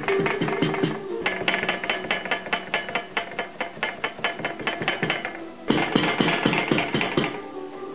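Rapid metal-on-wool striking, about five blows a second, in two runs with a short break between them: a weaver's comb beater packing down the knots and weft of a hand-knotted Persian rug. Soft background music plays under it.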